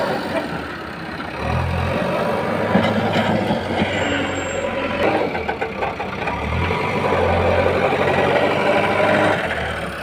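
Diesel engine of a JCB backhoe loader running and working, its revs and load rising and falling several times as the loader bucket is moved.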